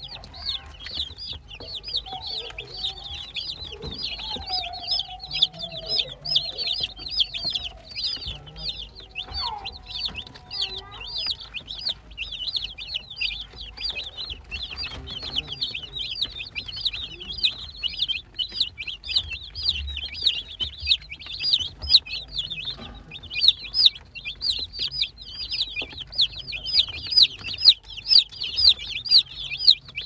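A flock of young chicks peeping without a break: many short, high chirps overlapping several times a second.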